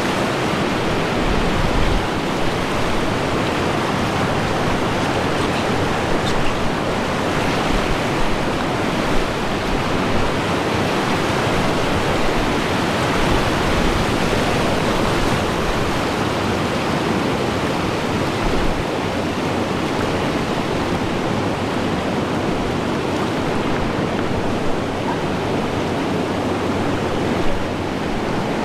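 Steady rushing of river rapids: churning whitewater heard close up from a raft, with a few small knocks.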